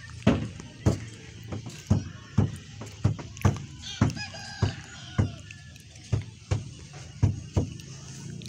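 Repeated sharp knocks on wood, about two a second with uneven spacing, faint pitched chirps in the middle.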